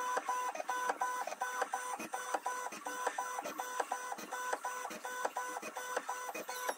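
Creality K2 3D printer's stepper motors making short whining moves about three times a second, with light ticks, as the nozzle probes point after point across the bed during auto bed leveling.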